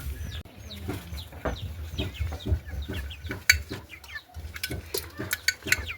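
Domestic chickens clucking, with many short, high calls scattered through.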